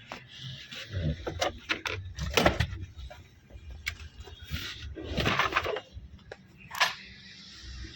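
Handling noises: a string of sharp clicks and knocks with a few short rustling scrapes, loudest about two and a half seconds in and again around five seconds.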